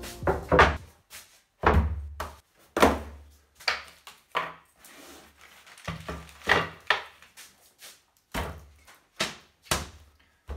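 Plywood panels, boxes and parts set down on a wooden workbench: a dozen or so irregular thunks and knocks, some heavy, with plastic wrapping crinkling between them.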